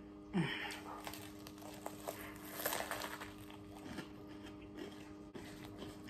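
Dogs barking now and then, a short falling bark about half a second in and fainter ones later, over soft chewing and hand noise from someone eating a sandwich.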